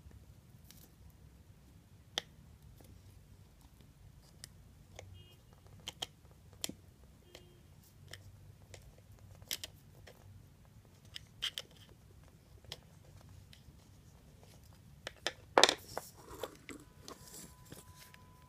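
Scattered small clicks and taps of a thin metal tool and the parts of a Shimano spinning reel's bail arm being worked apart, with a louder clatter of handling about fifteen seconds in.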